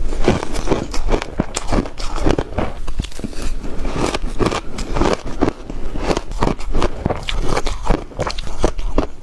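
A person biting and chewing ice close to the microphone: repeated, irregular crunches, a few a second.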